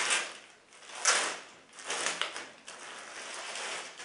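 Thin clear plastic bag crinkling and rustling as a cap is pulled out of it, in a few loud rustling bursts (the loudest about a second in), then softer rustling that fades near the end.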